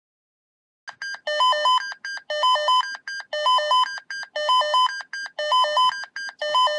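Electronic alert tone of short stepped beeps, the pattern repeating about once a second, starting about a second in: the alarm that heralds a control-centre dispatch call.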